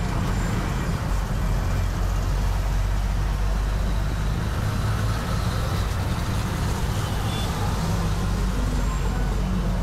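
Steady road traffic noise: motor vehicles running on a busy street, over a continuous low engine drone.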